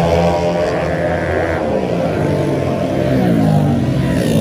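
Several race-tuned 130 cc automatic scooter engines running at high revs as the bikes come past, their overlapping pitches sliding up and down.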